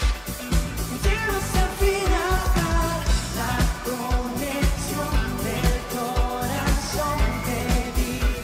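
Live pop song: two male singers singing in Spanish over a band with a steady beat.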